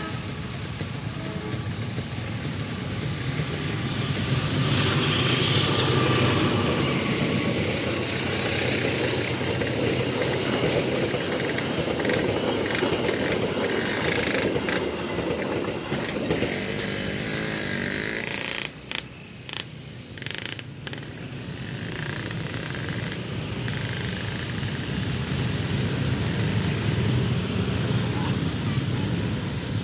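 Local passenger train passing over a level crossing: its wheels run loudly over the rails, building from a few seconds in, loudest soon after, and carrying on for about fifteen seconds. A held horn-like tone ends just over a second in. After the train, a crowd of motorcycle engines runs as traffic crosses the tracks.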